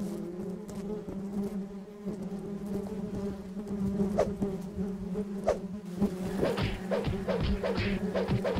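A swarm of bees buzzing in a steady low drone; from about six seconds in, a quick run of short repeated pulses joins it.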